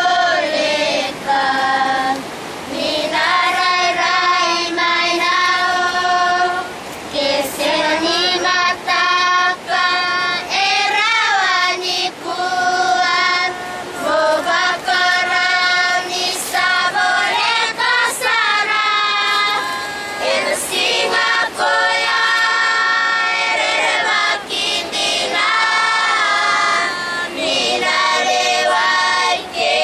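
Group of children singing together with a woman's voice among them, unaccompanied, in continuous sung phrases.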